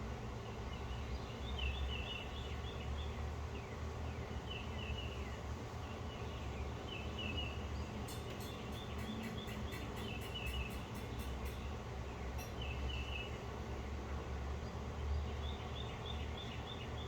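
Songbirds chirping: short bursts of rapidly repeated high notes every couple of seconds over a steady low hum. A run of faint, fast ticks, about five a second, comes in around the middle for a few seconds.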